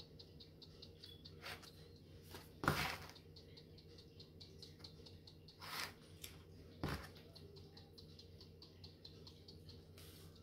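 Hand-held pepper grinder being twisted, giving a long run of small, quick, dry clicks. A few louder short knocks come in between, about three seconds in, near the middle and a second later.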